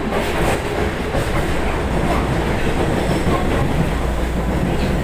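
Interior of an Osaka Metro 23 series subway car running between stations: a steady rumble of wheels on rail with a low hum, heard from inside the car.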